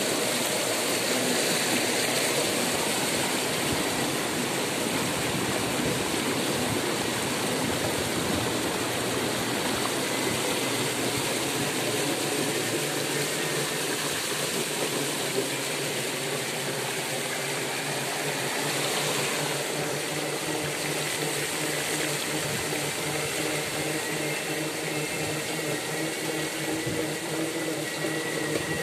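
Floodwater splashing and rushing steadily as a van wades through it, with a low steady hum underneath.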